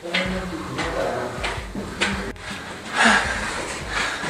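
Footsteps climbing concrete stairs at a steady pace, about one step every 0.7 seconds, over a low rumble from the camera being carried.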